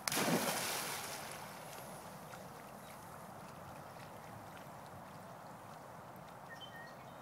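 A dog plunging into a pond with a loud splash, then swimming away through the water; after the splash only a faint steady water and outdoor noise remains.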